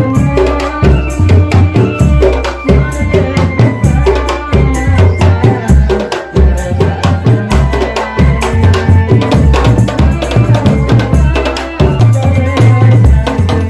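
Drum band playing loudly: bass drums and snare drums beat a fast, steady rhythm under a melody.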